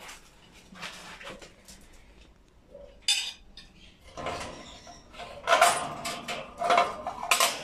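A metal spoon scraping and clinking against a ceramic plate while scooping crumbly bird food, in scattered taps that grow louder and more frequent over the last half.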